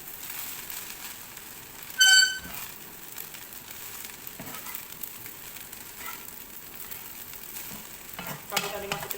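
Fried rice with shredded cabbage sizzling in a pan as it is stirred: a steady frying hiss. About two seconds in, a short, loud ringing tone stands out above it.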